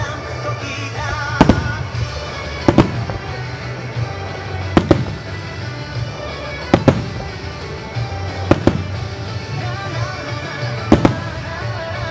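Aerial firework shells bursting, a sharp boom every second or two with a couple in quick pairs, over continuous music with a steady bass.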